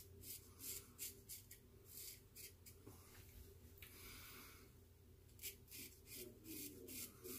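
Faint, short scraping strokes of a shavette razor drawn over lathered stubble, one after another in quick succession.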